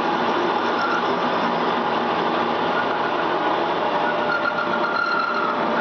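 IT-1M lathe running steadily with its milling setup, a continuous even mechanical whir with a faint higher whine joining in over the second half.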